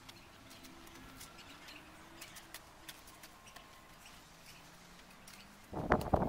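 Faint scattered ticks, then near the end a loud rough scraping of a spade digging into garden soil.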